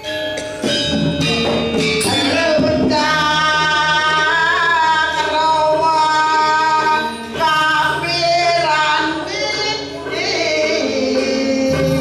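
Balinese gamelan music: struck metallic notes ringing in the first two seconds or so, then a long, wavering sung line held over a steady low drone.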